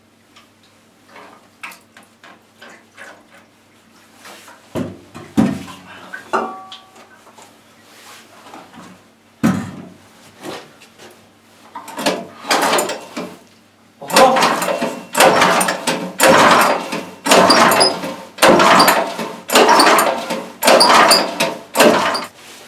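Hands-on work draining water from a small engine: scattered clicks and knocks, then about ten strong, even swishing strokes roughly one a second in the second half.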